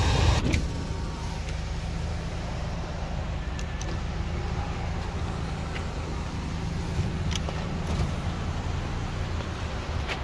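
2008 Honda CR-V's four-cylinder engine idling with a steady low hum, with a few faint clicks over it.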